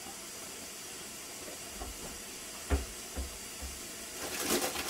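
Ninja Foodi pressure cooker hissing steadily as pressure builds, with a few soft low thumps midway. About four seconds in, its valve lets out a louder, pulsing hiss of steam.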